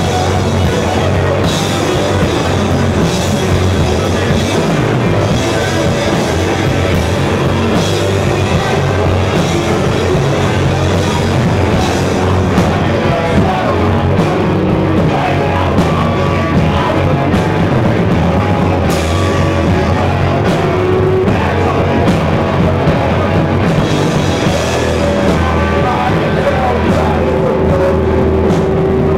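Live rock band playing loud and without a break: electric guitars through amplifiers over a drum kit.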